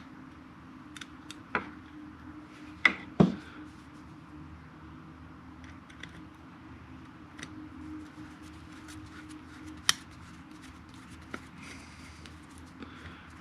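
Scattered clicks, taps and clinks of small metal and plastic parts being handled as a motorcycle turn signal assembly is put back together with its screws, the sharpest knocks a pair about three seconds in and another near ten seconds. A steady low hum runs underneath.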